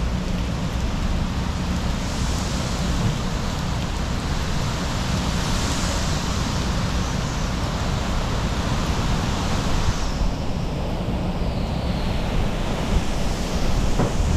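Tropical-storm wind gusting with rain, the wind buffeting the microphone as a steady low rumble. A hissing gust swells a couple of seconds in, eases about ten seconds in, and builds again near the end.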